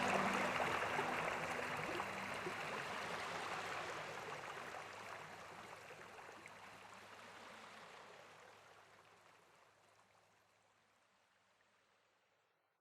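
Steady rush of a cascading waterfall, fading gradually to silence over about twelve seconds.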